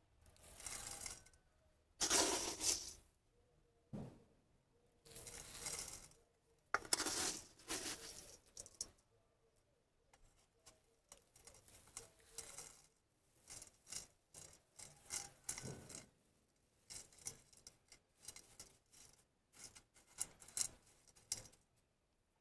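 Gravelly bonsai potting mix scooped with a small plastic cup from a metal mesh colander and poured, grit scraping and rattling in bursts: a few longer ones in the first eight seconds, then many short ones.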